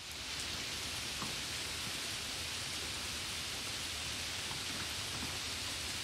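Steady rain falling on a puddle and wet ground: an even hiss with a few separate drop ticks.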